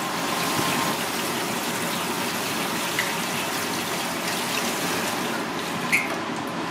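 Tap water gushing steadily into a steel bowl, rinsing pieces of raw red fish, with a couple of light clicks about three and six seconds in.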